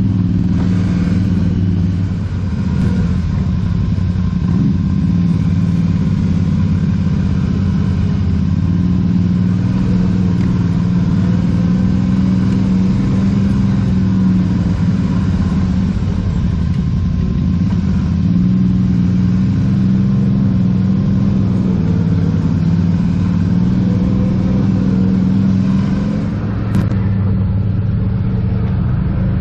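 ATV engine running steadily while the quad is ridden, its pitch rising and falling a little with the throttle. A single short click sounds near the end.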